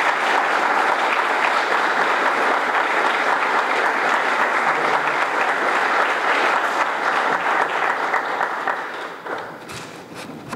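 Audience applauding steadily, the clapping thinning out and dying away about nine seconds in, with a few last separate claps near the end.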